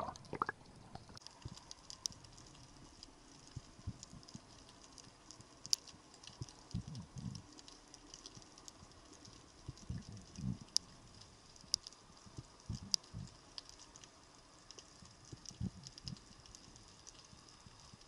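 Faint underwater ambience picked up by a diver's camera: a scattered crackle of sharp little clicks, with a few short, low, muffled thumps every few seconds.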